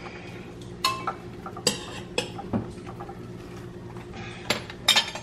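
Kitchen dishes and cutlery clinking and knocking: about half a dozen separate sharp clinks, over a steady low hum.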